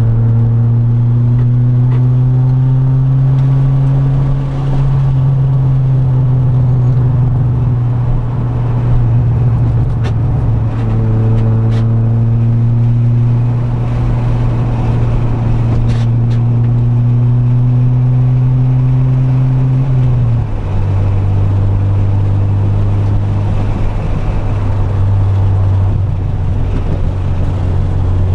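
Honda B20-VTEC four-cylinder race car engine heard from inside the cabin, under hard throttle on track. Its pitch climbs slowly as the car accelerates, then drops sharply about twenty seconds in with an upshift and holds steady.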